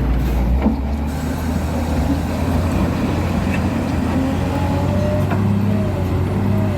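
A steady low mechanical hum, like a motor running continuously, with a faint wavering tone above it.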